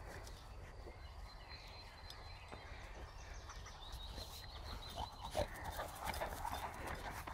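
Labrador retriever's paws beating on grass as it gallops up, getting louder in the last couple of seconds.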